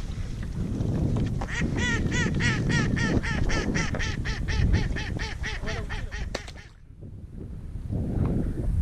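A duck quacking in a long rapid run, about four quacks a second, over low wind noise on the microphone; the calls stop about two-thirds of the way through.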